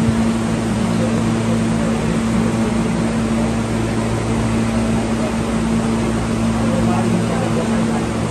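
Alstom R160A subway car running between stations, heard from inside the car: a steady rumble of wheels on track with a constant low hum over it.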